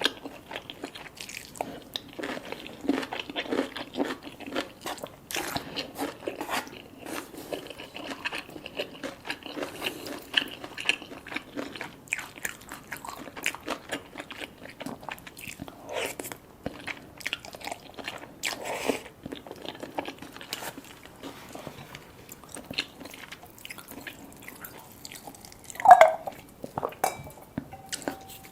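People chewing and crunching food, with irregular crisp bites and wet mouth sounds. A single brief, louder sound comes near the end.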